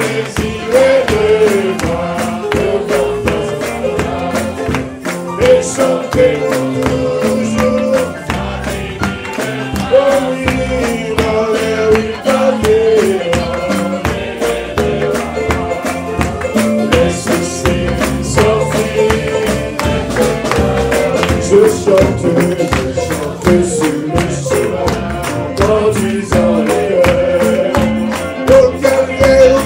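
Live church praise music: voices singing a melody over hand clapping and percussion that keep a steady beat.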